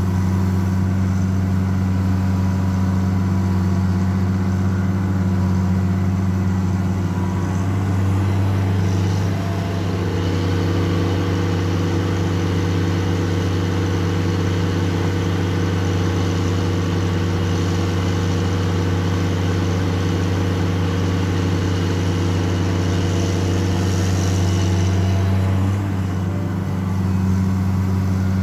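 Caterpillar 336D L hydraulic excavator's C9 six-cylinder diesel running steadily under hydraulic load as the machine digs and swings. Its note changes about ten seconds in and dips briefly near the end as the load shifts.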